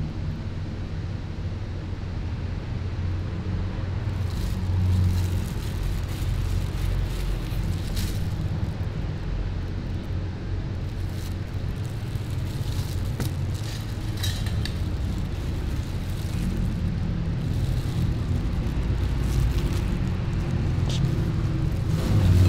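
Steady low rumble of background noise, with a few faint light clicks.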